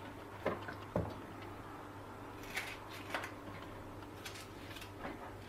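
Faint, scattered taps and soft knocks of a knife cutting tomatoes and red peppers and pieces dropping into the plastic bowl of a small food chopper, about six in all, the sharpest about a second in. A low steady hum runs underneath.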